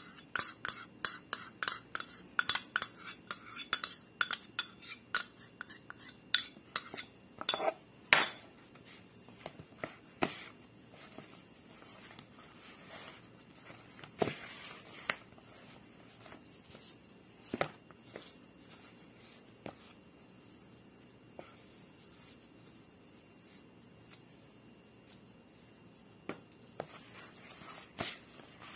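A spoon clinking and scraping against a small ceramic bowl in quick taps, about three a second, for the first several seconds while olive oil is emptied into bread dough. After that come only occasional soft knocks as the dough is mixed by hand in a plastic bowl.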